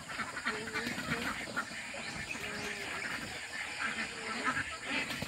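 A flock of domestic egg-laying ducks quacking: many short calls overlapping irregularly.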